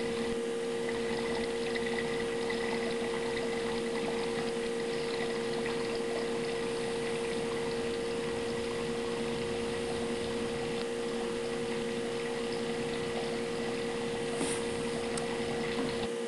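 Kelvin water dropper's two water streams falling into galvanized metal buckets: a steady splashing with a steady hum underneath. A faint tick comes about 14 seconds in.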